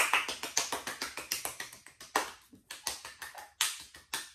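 One person clapping her hands, quick even claps that thin out and slow after about two seconds, then stop.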